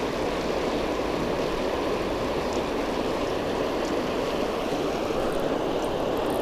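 Water pouring through a spillway, a steady rushing.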